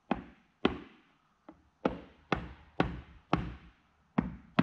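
Hammer taps, about two a second with one lighter blow in the middle, driving a new park brake piston into its bore in an 8330T powershift transmission case. The piston is going in unusually hard and hanging up.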